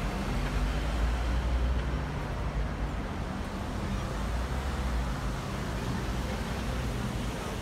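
Road traffic running past: a low engine rumble that swells about a second in and eases after three seconds, over steady city street noise.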